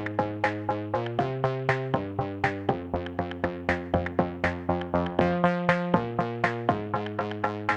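Background electronic music: synthesizer chords with a steady, quick beat.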